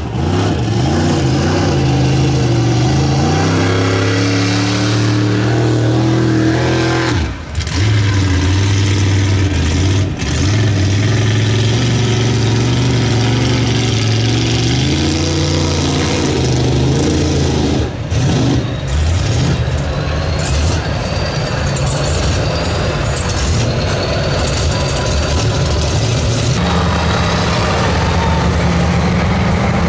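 Lifted mega truck's big engine revving hard under load as it churns through deep mud, the pitch climbing and falling with the throttle.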